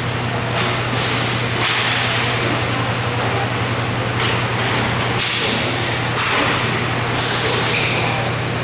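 Inline roller hockey play in a large indoor rink: sharp clacks and thuds of sticks, puck and boards, with hissing swells of skate wheels on the rink floor, over a steady low hum. It echoes as in a large hall.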